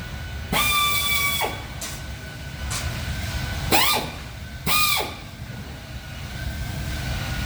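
Short bursts of a handheld power tool, three runs, each spinning up to a steady whine with a hiss, the first about a second long, plus a couple of brief faint hisses.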